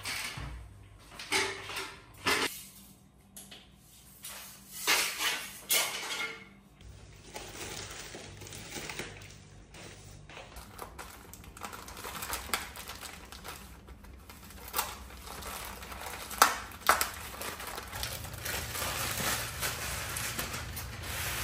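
Dishes and cutlery clinking and knocking, several separate sharp clinks scattered through, over a faint steady background.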